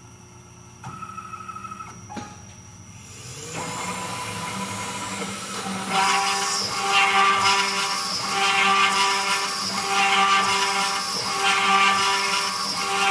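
Homemade CNC router's 500 W spindle spinning up about three and a half seconds in, then its 2 mm two-flute straight bit cutting into a wood panel from about six seconds. The cutting noise is a steady high whine that swells and dips about every one and a half seconds.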